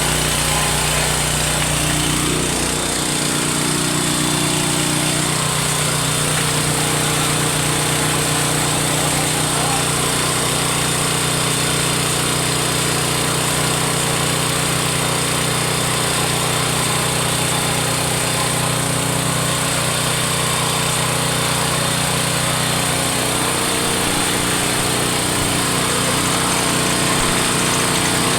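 Small petrol engine of a concrete vibrator running steadily just after starting; its low note changes about three seconds in, then holds even.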